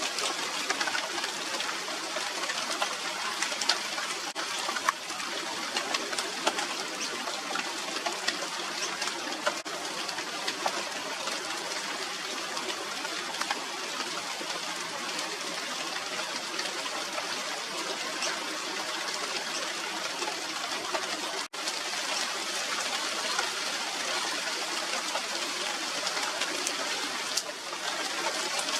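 Steady rain falling on the leaves of a China doll tree (Radermachera sinica): an even hiss flecked with many small drop clicks. It drops out for an instant about three-quarters of the way through.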